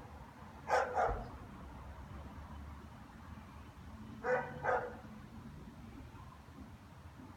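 German shepherd barking in two pairs of barks, the first pair about a second in and the second about four seconds in.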